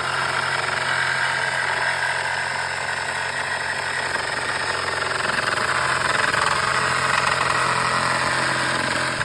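An engine running steadily at a constant speed, with an even low hum under a dense, noisy mid-range.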